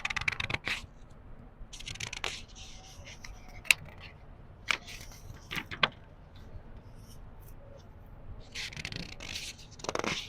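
Book pages being turned slowly by hand, paper rustling in separate strokes. There are rustles at the start and about two seconds in, a few sharp paper flicks in the middle, and a longer rustle near the end.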